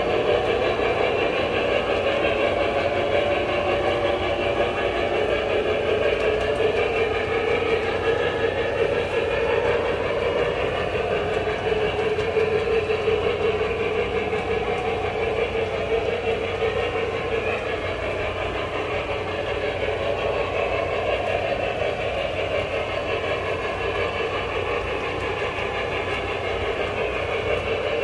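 O-scale model train running steadily on three-rail tubular track: a continuous rolling rumble of the wheels and motor, joined by the locomotive's onboard engine sound.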